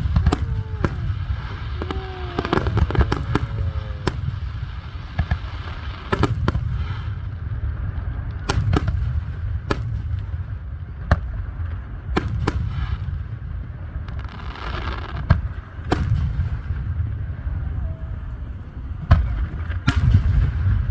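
Fireworks display: aerial shells bursting in irregular succession, with sharp bangs and crackles over a continuous low booming rumble. A few short falling tones sound in the first four seconds.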